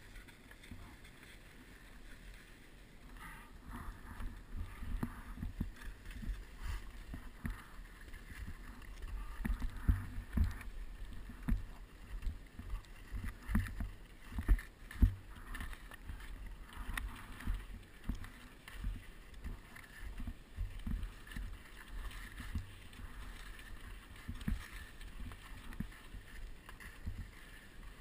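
Skis sliding and scraping over packed piste snow while skiing downhill, with wind buffeting the microphone in irregular low thumps and rumble.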